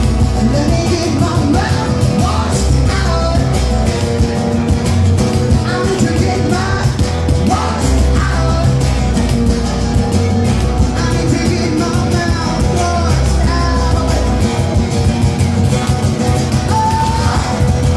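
Live band playing a rock song in an acoustic set: a singer's voice over guitar and bass.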